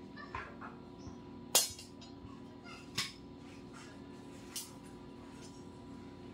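Sharp metallic knocks from work on a steel tricycle sidecar body: a few light clicks at first, then three clear knocks about a second and a half apart, the first the loudest. A faint steady hum runs underneath.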